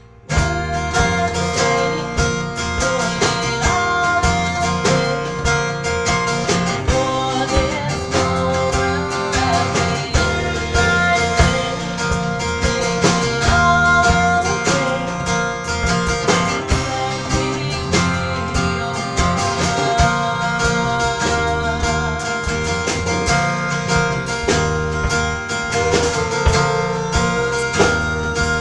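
A live band plays a song: a woman sings over her strummed acoustic guitar, backed by a drum kit and a second guitar. The full band comes in loudly about a third of a second in, after a quiet moment, and keeps a steady beat.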